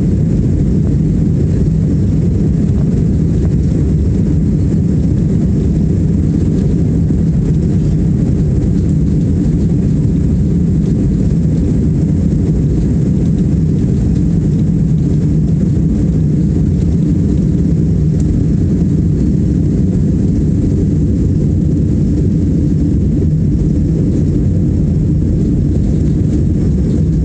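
Airbus A320-200 cabin noise during the takeoff run and climb-out: the jet engines at takeoff thrust make a loud, steady low rumble, heard from inside the cabin by a window.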